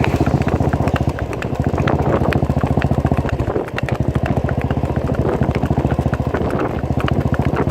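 Motorcycle engine running steadily with a fast, even beat, dipping briefly about three and a half seconds in.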